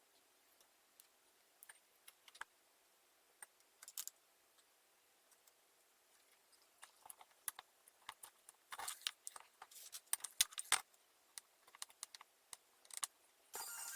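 Irregular light clicks and rattles of small hard parts, thickest from about nine to eleven seconds in.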